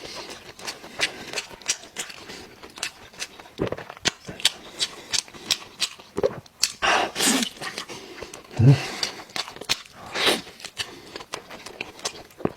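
Close-miked chewing of beef tongue: a dense, irregular run of wet smacking clicks from the mouth, with a few longer, louder mouth sounds in between.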